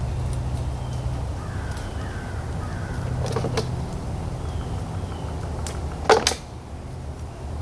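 Crows cawing faintly in the background over a steady low hum, broken by two sharp handling noises, the louder one about six seconds in.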